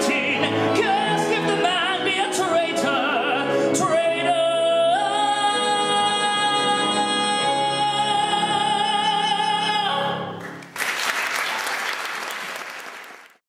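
Male singer finishing a musical-theatre song, ending on a long held note that steps up in pitch about five seconds in and stops about ten and a half seconds in. Audience applause follows, fading out near the end.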